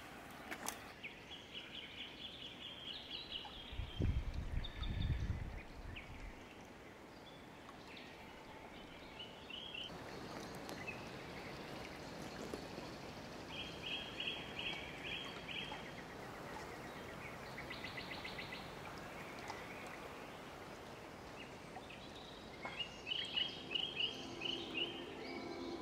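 Small songbirds singing in conifer forest: short, fast trills of repeated high notes every few seconds over a faint steady outdoor hiss. A brief low rumble about four seconds in is the loudest thing.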